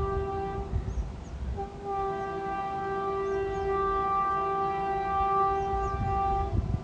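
WAP7 electric locomotive's horn: a blast that ends under a second in, then after a short break one long steady blast of about five seconds, over the low rumble of the passing train. The horn is the warning sounded as the express runs through a station without stopping.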